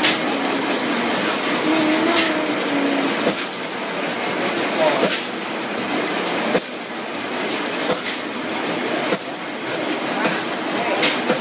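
Crossley stationary gas engine running, its large flywheels turning, with a sharp beat about every one to two seconds over a steady mechanical clatter.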